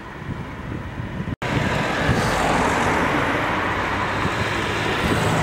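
Road traffic on a city street: after a brief dropout about a second and a half in, a car drives past close by with steady tyre and engine noise.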